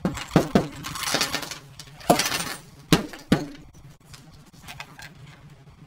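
Shards of a smashed Etch A Sketch's glass screen clinking and rattling as they slide out of the toy onto the table: several sharp clinks in the first three and a half seconds with a hiss of sliding debris between them, then only faint small sounds.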